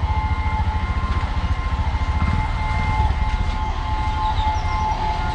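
Railway level-crossing warning signal sounding steadily with a continuous electronic tone, over a low fluttering rumble, while a train is awaited.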